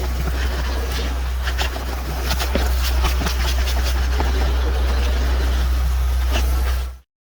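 A machine running steadily with a strong low drone and a hiss, with scattered sharp clicks over it. It cuts off suddenly near the end.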